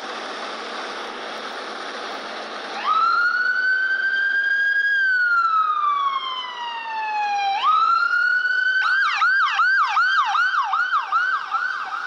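UK ambulance siren on an emergency run. After about three seconds of steady traffic rush it starts with a slow wail, rising, holding and gliding down. About eight seconds in it rises again and switches to a fast yelp of about three cycles a second.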